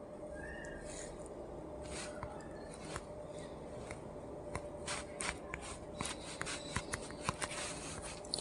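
Faint scattered taps and clicks of fingers handling and tapping a smartphone, coming more often in the second half, over a low steady hum. No speaker-cleaning tone is playing yet.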